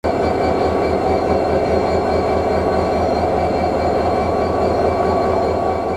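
Diesel locomotive's engine running close by, a loud, steady low throb with a constant whine above it.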